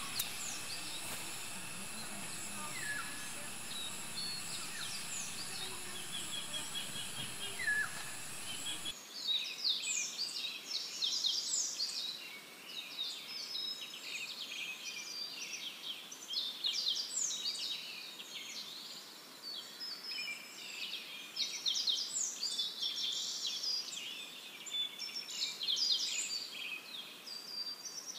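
A steady high-pitched drone with a few bird chirps, then, after a cut about nine seconds in, a dense chorus of many birds chirping and singing.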